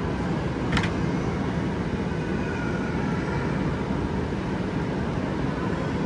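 Steady background din of a busy shopping mall, an even low hum with no clear words, and one short sharp knock about a second in.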